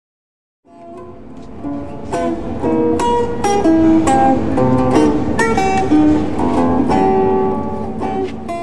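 An acoustic plucked string instrument picking out a melody note by note, starting about a second in.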